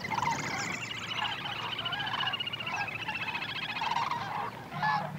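Wetland chorus of animal calls: a continuous rapid trill with many shorter calls over it. A few louder separate calls break in near the end.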